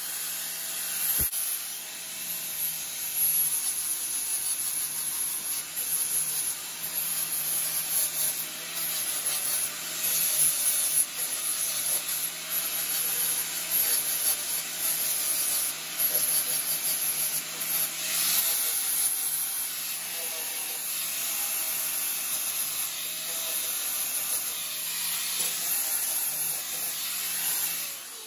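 DeWalt angle grinder with a flap disc grinding a metal inlet manifold flange. It is taking the old tube stubs back flush, and its scraping hiss swells and dips as the disc is pressed on and eased off over a steady motor hum.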